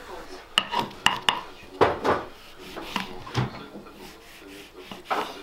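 Large kitchen knife slicing a lemon on a wooden cutting board, with a run of irregular sharp knocks of the blade against the board, the loudest in the first two seconds.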